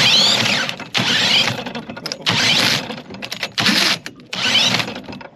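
Cordless drill spinning a small outboard engine over through a socket on its flywheel nut, whining in about four bursts of roughly a second each. The pitch falls within each burst as the engine turns over without catching.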